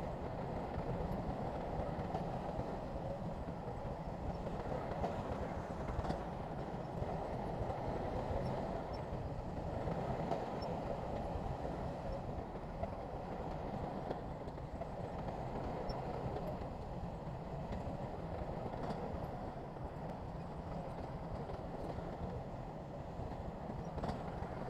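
Shantui crawler bulldozer working: its diesel engine runs steadily under a continuous mechanical clatter.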